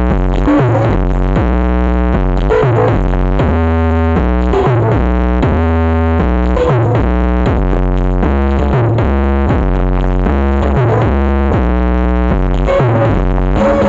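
Loud electronic dance music played through a large BMS Audio sound system at a sound check: a repeating synth riff over heavy, deep bass notes that change pitch every half second or so.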